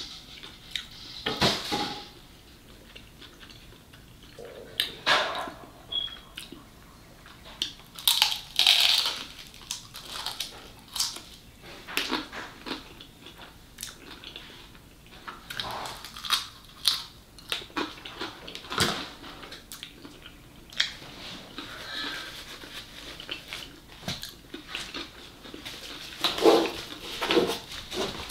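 Close-miked eating sounds: chewing fried cream cheese wontons, with irregular bites and wet mouth smacks.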